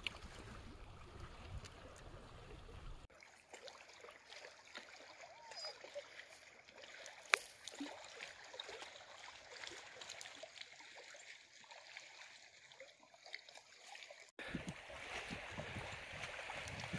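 Small lake waves lapping and washing against rocks at the shoreline, a soft steady splashing. Wind rumbles on the microphone for the first three seconds and again near the end, and there is a single sharp click about seven seconds in.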